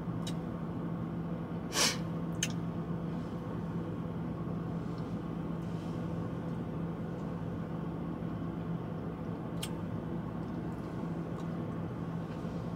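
Steady low mechanical hum inside a truck cab, with one constant low tone. A short breathy hiss comes about two seconds in, and a few faint clicks are heard, the loudest near the start and around ten seconds in.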